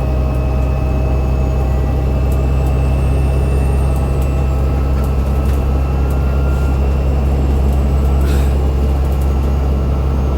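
Alexander Dennis Enviro500 MMC bus heard from inside, its Cummins ISL 8.9-litre diesel and ZF six-speed automatic running with a steady low drone. Thin, steady whining tones ride over it, the odd axle sound this recording is about, and a short click comes about eight seconds in.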